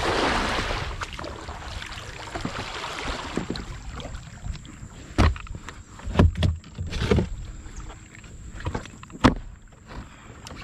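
Kayak paddling on a fast-flowing river: a rush of water at first, then a few short, sharp paddle splashes, the loudest about halfway through and one near the end.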